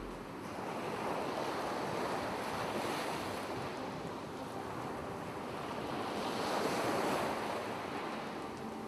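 Ocean surf washing onto a beach, a steady rushing noise that swells and fades in slow surges, loudest about three seconds in and again about seven seconds in.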